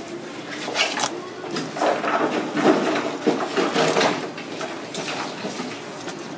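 Knife cutting and scraping along a large golden pomfret's backbone on a cutting board: irregular scrapes with a few light knocks, busiest in the middle, over steady background noise.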